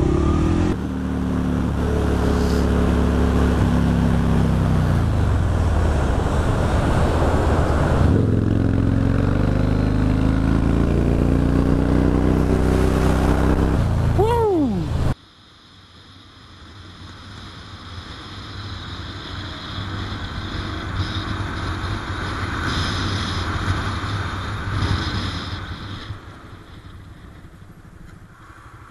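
Motorcycle engine heard from the rider's onboard camera, its pitch falling as the bike slows and then climbing again as it accelerates. About halfway through it cuts off suddenly to quieter wind and road noise that swells and then fades.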